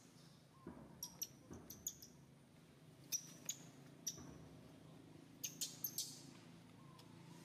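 Baby macaque giving short, high-pitched squeaks in three quick clusters of three to five, cries the title puts down to hunger for milk.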